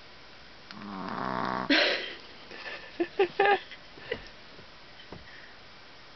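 Exhausted puppy snoring in deep sleep. One drawn-out snore swells about a second in and ends in a sharp, loud snort, and a few short, sharp sounds follow about three seconds in.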